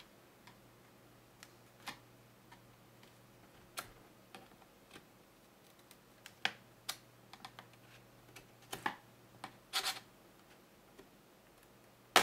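Plastic retaining tabs of a tablet's back cover clicking and snapping loose as a flat-blade screwdriver pries along the case edge. Irregular sharp clicks with quiet gaps between them, the loudest snaps coming in a cluster near the end.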